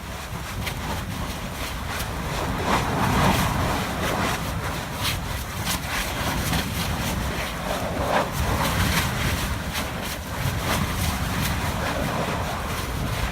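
Erupting lava fissure: a continuous low rumbling noise that swells a little twice, with frequent short, sharp pops, and wind buffeting the microphone.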